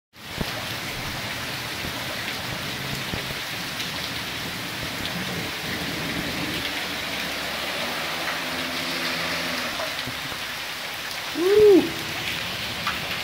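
Heavy rain falling steadily and splashing on flooded ground, with water pouring off a roof edge. Near the end a short hoot-like sound rises and falls, the loudest moment.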